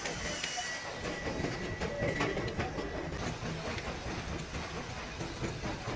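Steady low mechanical rumble with scattered light clicks and taps as a clear plastic turbocharger repair-kit tray and small parts are handled.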